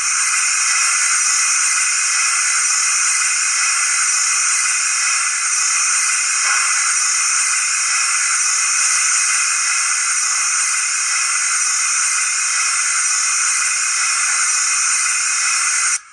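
Loud, steady steam hiss from a Bachmann prairie tank model locomotive's Zimo sound decoder, playing through its small speaker. It starts and cuts off suddenly.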